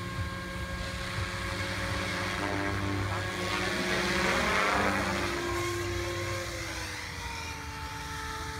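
Three-bladed SAB Goblin Urukay electric RC helicopter in flight: a steady whine of motor and rotor with a whooshing rotor noise that swells about halfway through. The pitch drops near the end.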